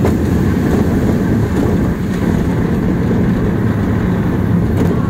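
Bolliger & Mabillard inverted steel roller coaster train running at speed: a steady low rumble of the wheels on the track mixed with wind buffeting the rider's phone microphone.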